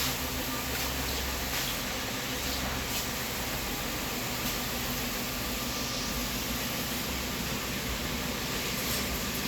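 Handheld electric polishing machine running steadily on car paint: a continuous hiss with a faint motor hum.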